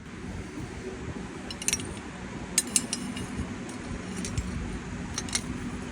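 Light metal clinks, a handful of short sharp ones in small clusters, over a steady low hum.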